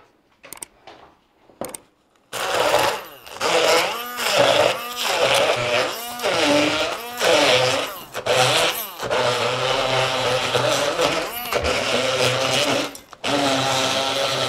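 Immersion blender switching on about two seconds in and running loudly through a thick mix of dried herbs, fresh ginger and oil, its pitch rising and falling as it works the mixture. It stops briefly a few times before running on.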